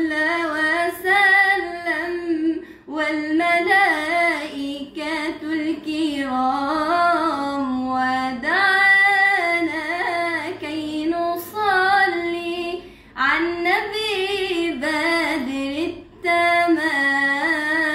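A young woman's solo voice chanting an Islamic ibtihal, a devotional supplication praising the Prophet Muhammad, in long ornamented melismatic phrases with short pauses for breath between them.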